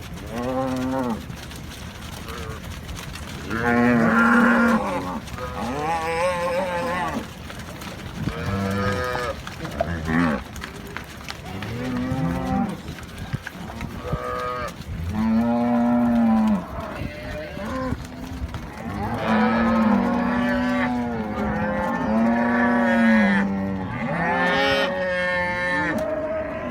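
A herd of cattle mooing: a long run of separate calls, some a second or more long, coming thick and fast and overlapping near the end.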